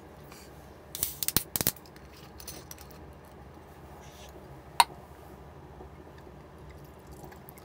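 Glassware being handled: a quick run of sharp clicks and knocks about a second in, then a single bright, ringing clink of glass later on.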